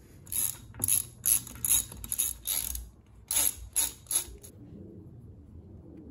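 Hand ratchet wrench clicking in about nine short strokes, then stopping about two-thirds of the way through: the bolts holding the wheel hub to the Dana 30 axle knuckle are being run down before torquing.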